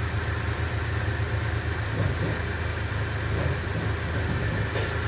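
Toyota Avensis 2.0 D4-D four-cylinder turbodiesel engine idling steadily, with one short click near the end. It makes an abnormal noise that the seller puts down to a failed head gasket, along with coolant and power loss.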